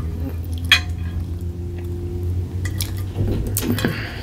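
Cutlery clinking against a plate a few times while pancake is cut and eaten, over a steady low hum.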